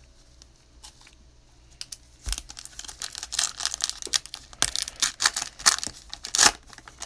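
The plastic wrapper of a 2019-20 Mosaic basketball card pack being torn open and crinkled. It starts about two seconds in as a quick run of sharp, crackling rips.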